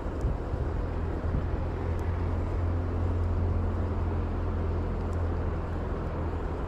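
Shallow mountain river rushing over stones in a riffle: a steady rushing noise with a deep low rumble, and a few faint ticks.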